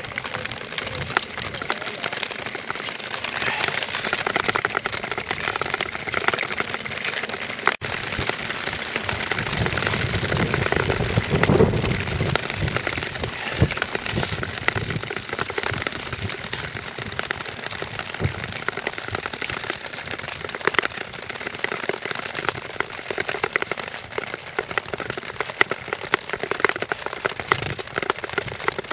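Nordic tour skates gliding and scraping across clear lake ice, with a continuous dense crackle of small clicks and ticks from blades and ski-pole tips striking the ice.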